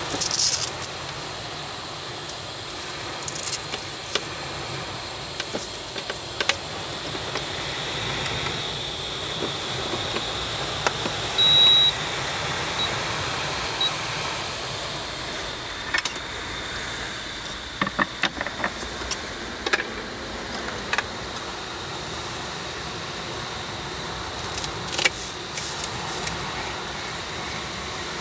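Steady hiss of rain with a lit camping gas burner, broken by scattered clicks and knocks of handling as a portable induction cooktop is plugged in. About a third of the way in, the cooktop gives one long electronic beep as it is switched on, then two short beeps as its touch buttons are pressed.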